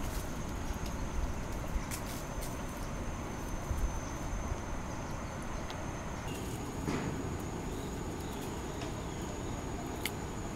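Outdoor ambience: a steady low rumble and hiss with a continuous high-pitched insect drone, and a few faint clicks.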